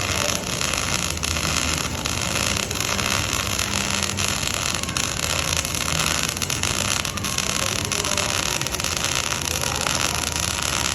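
Electric welding arc crackling and hissing steadily, with irregular sharp crackles over a constant hiss.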